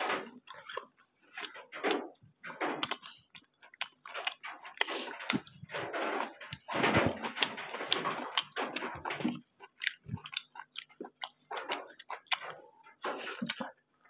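Two people eating with their hands at close range: irregular chewing, smacking and biting sounds as they eat rice, pumpkin and meat, with small clicks and squelches of food being picked up.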